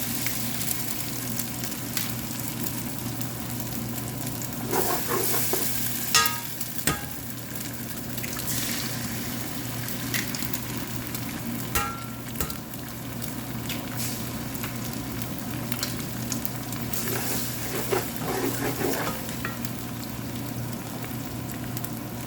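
Eggs frying in hot oil with garlic and chili, a steady sizzle as they are stirred, with a few sharp ringing clinks of the spatula against the pan about 6 seconds in and again near 12 seconds.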